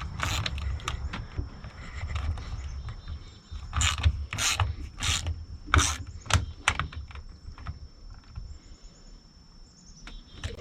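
Ratchet wrench tightening a nut on the autopilot's steering cable fitting: a run of clicks and metal ticks, with a string of louder strokes about half a second apart midway.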